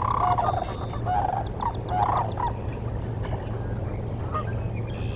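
Waterfowl calling: a run of short calls in the first two and a half seconds and a few fainter ones later, over a steady low hum.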